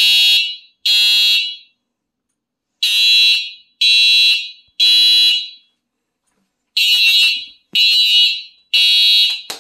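Fire alarm horn sounding in the temporal-three (Code 3) evacuation pattern: three loud blasts about a second apart, a short pause, then three more, repeating.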